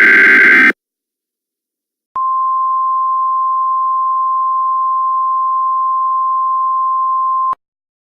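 The tail end of an Emergency Alert System digital header burst, then, after a short pause, a single steady alert tone at one pitch of about 1 kHz lasting about five seconds and cutting off abruptly.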